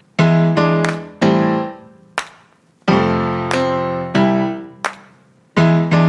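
Slow solo piano music: single notes and chords struck one after another and left to ring and fade, with brief pauses between phrases.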